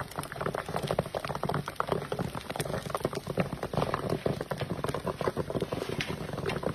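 Popcorn crackling and sizzling in a hot iron kadhai over a wood fire: a dense, irregular patter of many quick pops each second over a steady sizzle.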